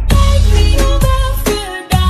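Background pop song: a sung melody over a heavy, steady beat of deep bass hits, dropping away briefly near the end.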